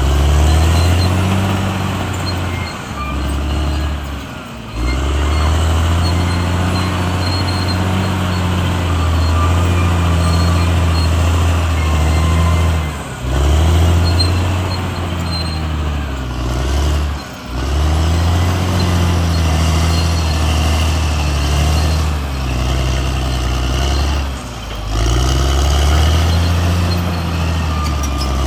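CAT D6R XL bulldozer's diesel engine running hard under load, its pitch dropping and recovering again and again, with a brief dip in sound every few seconds as the machine works.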